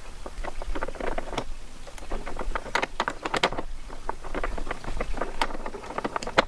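Irregular small clicks and scrapes of a key being pushed and wiggled at a plastic motorcycle pannier's lock cylinder, with hands knocking and rubbing on the plastic case. The key is not going in: the owner later finds that the lock's little tab was facing the wrong way.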